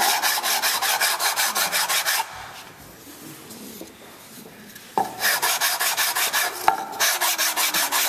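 Small wooden box rubbed quickly back and forth on a sandpaper sanding board, about five or six scraping strokes a second, sanding its top and bottom edges flat and smooth. The sanding stops after about two seconds and starts again about five seconds in.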